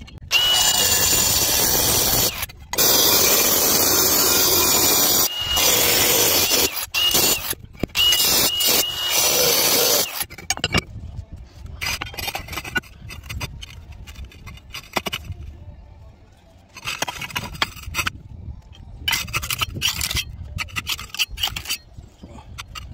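Angle grinder cutting a notch in a clay roof tile to clear a solar roof hook, running in several passes with short pauses and a steady high whine. In the second half, clay tiles scrape and knock as they are slid back into place.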